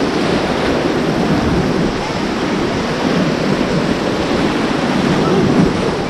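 Steady rushing of river whitewater rapids around an inflatable raft, with wind noise on the microphone.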